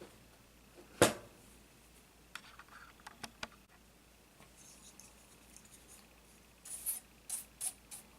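Clicks and knocks of small plastic and metal laptop parts being handled and set down. There is one loud knock about a second in and a quick run of four or five clicks near the end.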